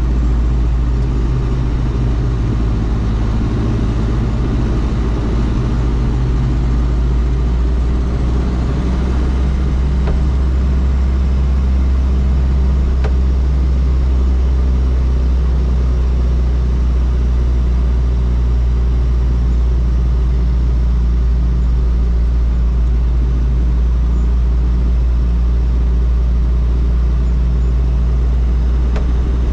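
Toyota Land Cruiser BJ73's 13B-T four-cylinder turbodiesel running at a steady engine speed while the truck is driven, a deep, even drone.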